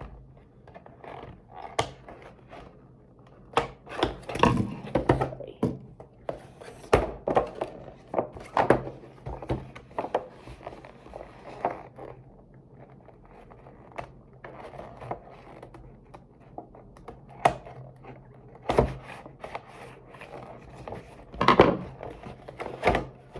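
Cardboard box being handled while its tape is worked open: irregular knocks, thunks and scraping.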